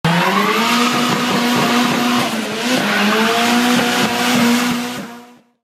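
Car engine held at high revs with tyres squealing, as in a drift, fading out about five seconds in.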